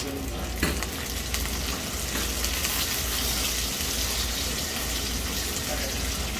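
Blanched pierogies sizzling steadily in melted butter in a hot frying pan.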